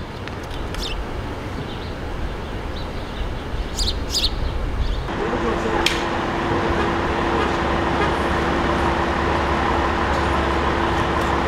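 Street ambience at a crash scene: a low rumble with a few short high chirps, then from about five seconds in a louder, steady hum of idling fire engines.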